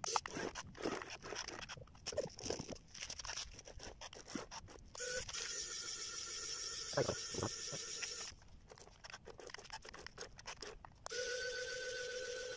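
Small electric motors of a cardboard RC forklift whirring in short stretches, about five seconds in and again near the end, over crunching and scraping on gravel.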